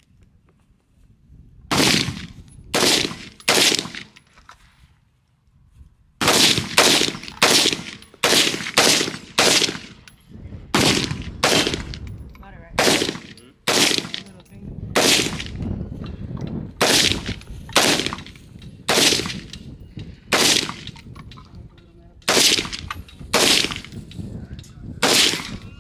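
AR-15 rifle firing single semi-automatic shots: three shots about two seconds in, then after a short pause a long string of about thirty shots, roughly two a second, with brief breaks between groups.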